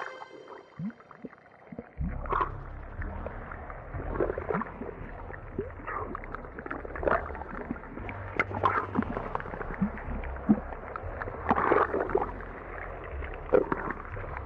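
Audio-drama sound effects: after a near-quiet start, a steady low rumble sets in about two seconds in, with irregular knocks and clatters over it, roughly one a second.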